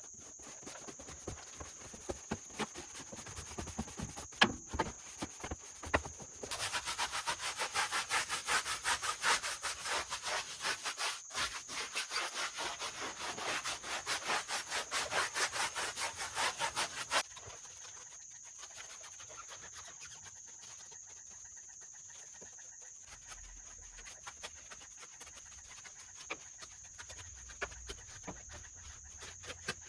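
A stiff hand brush scrubbing a car wheel back and forth in quick strokes, about three or four a second, for roughly ten seconds from about six seconds in. Light scattered clicks and taps come before and after it.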